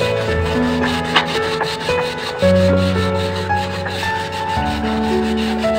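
Sandpaper scrubbing back and forth on the wet tiled floor of a fish tank, rubbing off algae, in repeated strokes. Background music with held keyboard-like chords is louder than the scrubbing.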